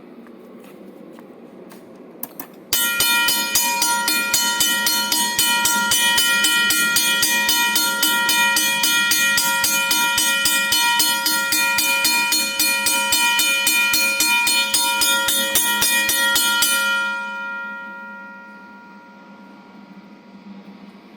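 Electric bell ringing continuously, its clapper striking many times a second, for about fourteen seconds, then stopping and ringing out.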